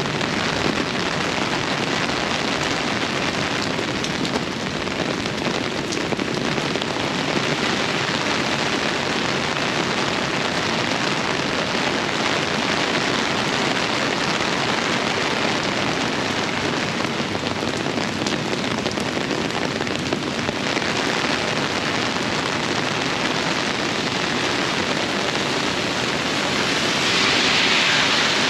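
Heavy rain from a tropical storm, a steady downpour hissing and pattering on the surfaces around, with the hiss rising briefly near the end.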